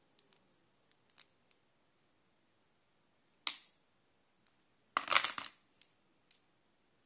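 White chocolate buttons clicking against one another as fingers pick through a handful of them. There are a few light clicks, a sharper click about three and a half seconds in, and a short clatter of clicks about five seconds in, which is the loudest.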